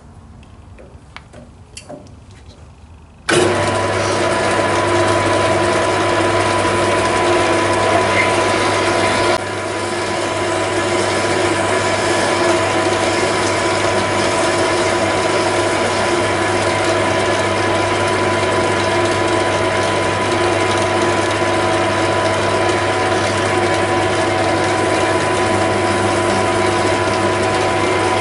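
A few light clicks, then a small metalwork lathe starts abruptly about three seconds in and runs steadily, its motor humming and its gear train whining with several steady tones. The level dips slightly about nine seconds in, as the tailstock drill feeds into the acetal stock.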